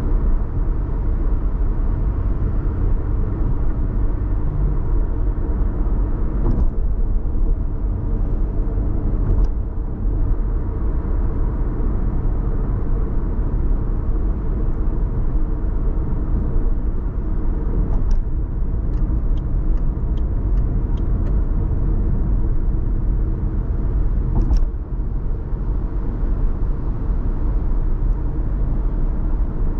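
A car driving, with steady road and engine rumble. About two-thirds of the way through there is a short run of faint, evenly spaced ticks, roughly two or three a second.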